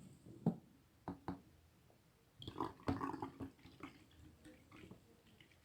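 Faint, scattered clicks and knocks of a bottle and ingredients being handled while it is filled, with a short cluster of small handling sounds about halfway through.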